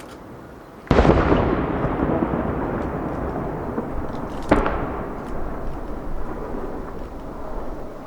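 Two aerial firework shells bursting about three and a half seconds apart, each a sudden bang followed by a long rolling rumble that slowly dies away; the first is the louder.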